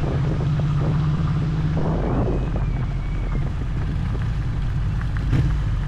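Motorcycle engine running at low speed while ridden slowly along a gravel track, a steady low drone whose note eases after about two seconds. A short knock sounds near the end.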